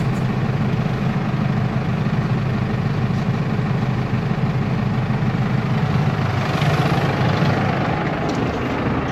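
Tractor engine running steadily, driving the hydraulics of a machine that strips plastic pots off potted trees; the sound swells a little between about six and eight seconds in.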